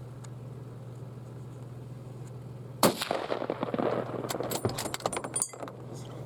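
A single rifle shot about three seconds in, sharp and loud, followed by a couple of seconds of irregular rustling and clicking, over a steady low hum.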